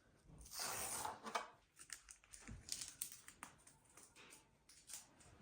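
Faint rustling as a piece of white faux fur and craft tools are handled, followed by a scatter of small clicks and ticks.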